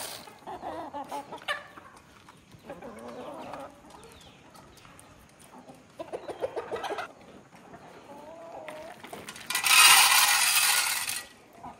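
A flock of hens clucking and calling, with a quick run of clucks about six seconds in. Near the end comes the loudest sound, a rush of feed pellets poured from a scoop into a metal feeder trough.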